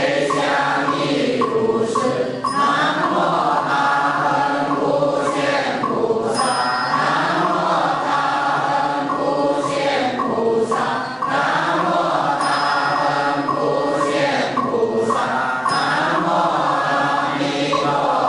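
Buddhist devotional chanting with musical backing: voices intone a steady, unbroken chant.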